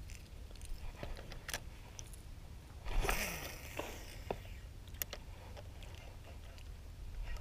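Spinning reel being cranked to retrieve a topwater popper, giving scattered small clicks, over a low wind rumble on the microphone. A brief rush of noise comes about three seconds in.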